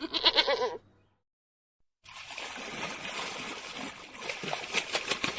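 A goat bleating briefly, cut off after under a second; then, about two seconds in, water splashing and trickling steadily.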